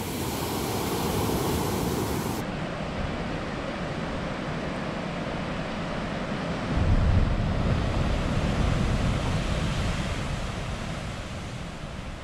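Ocean surf breaking and washing onto the shore, a steady rushing noise, with wind blowing across the microphone; a louder low rumble of wind comes about seven seconds in and eases off over the next few seconds.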